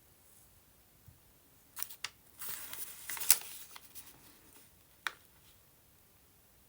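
Paper rustling as it is handled, for about two seconds, with a sharp tap in the middle and another tap about two seconds later.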